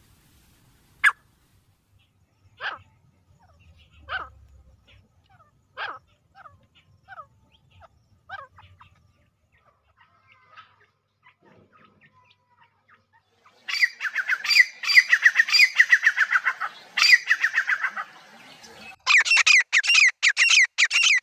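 Grey francolin calling: first a few sharp single notes spaced about a second and a half apart, then, about two-thirds in, a loud rapid run of repeated calls that breaks off briefly and starts again near the end.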